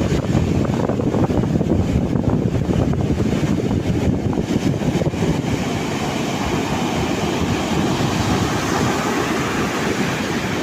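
Ocean surf on a beach, with wind buffeting the microphone as a heavy low rumble. About halfway through, the hiss of a wave washing in swells up and holds.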